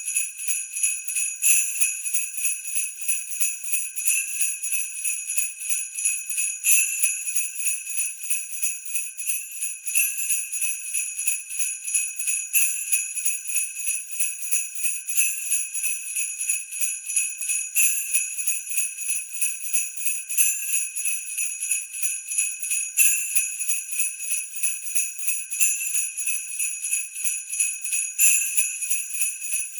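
Sleigh bells shaken continuously in a steady rhythm: bright, high jingling with a stronger shake about every two and a half seconds.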